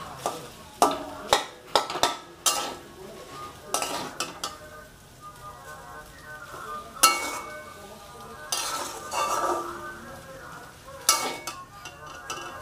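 Stir-frying boiled egg noodles and vegetables in a metal kadai (wok): a metal spatula scrapes and knocks against the pan in irregular strokes over a steady sizzle. The strokes come in a quick cluster over the first couple of seconds, with a sharp knock about seven seconds in and a longer scrape just after.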